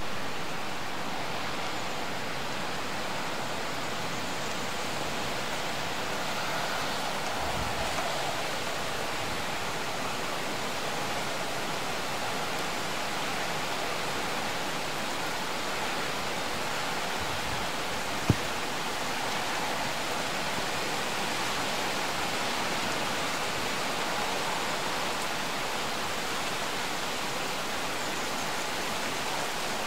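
Steady rain in a thunderstorm, an even hiss that does not let up, with one sharp click about 18 seconds in.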